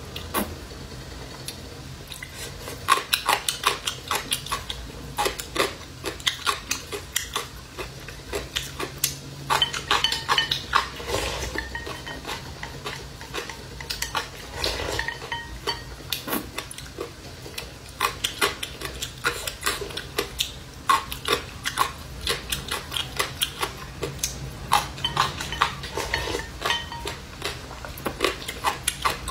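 Wooden chopsticks clicking and scraping against a porcelain bowl as rice porridge is shovelled from the bowl held at the mouth. The clicks come quickly and irregularly in clusters throughout.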